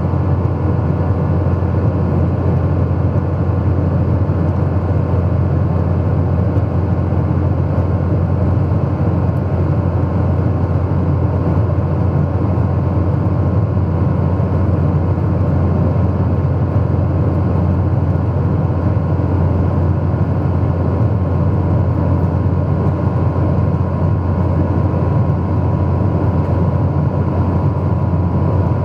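Jet airliner cabin noise in flight: the engines and the airflow over the fuselage make a deep, even drone, with faint steady hums above it.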